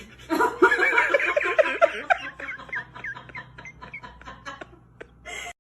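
A person laughing in a fast, high-pitched run of giggles that tapers off over several seconds.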